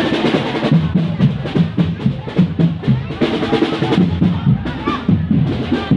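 Drum-led percussion music with a busy, even beat and deep bass-drum hits, with voices mixed in.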